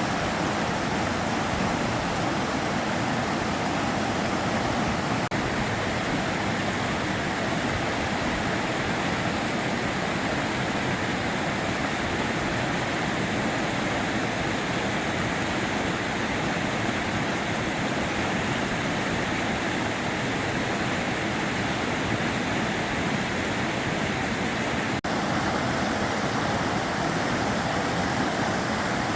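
The Sava River flowing: a steady, even rush of moving water, with a brief dip and a slight change in tone about 25 seconds in.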